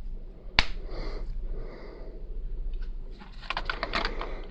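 Plastic Lego pieces being handled and pressed together: one sharp click about half a second in, soft rustling, then a cluster of small clicks near the end.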